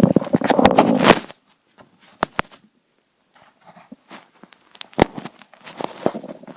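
Hungry, empty stomach gurgling close up: a crackly rumbling burst in the first second or so, then scattered faint pops and clicks.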